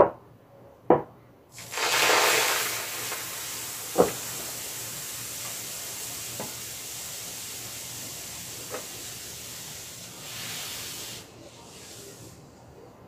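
Milk poured from a carton into a hot electric pan, with a steady hiss as it hits the pan's surface. The hiss starts loud about a second and a half in and cuts off near the end. A few light knocks come before it and one about four seconds in.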